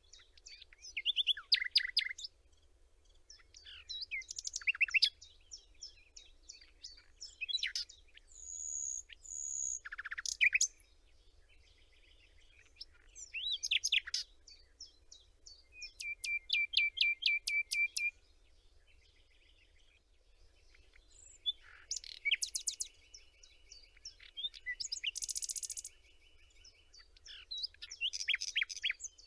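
Birdsong: several different birds chirping and singing in turn, with two fast, even trills in the second half.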